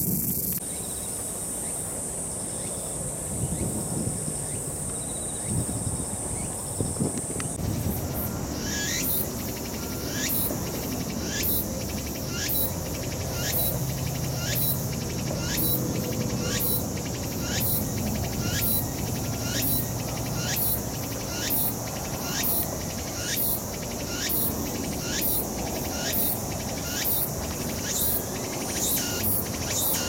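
Tsukutsukuboushi cicada (Meimuna opalifera) singing. A steady high buzz runs for the first several seconds, then gives way to its rhythmic repeated phrase about once a second, each phrase with a falling note.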